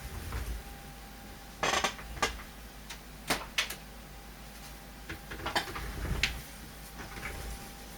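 Laptop display panel and parts being handled on a workbench: scattered light knocks and clicks, with a brief scrape a little under two seconds in.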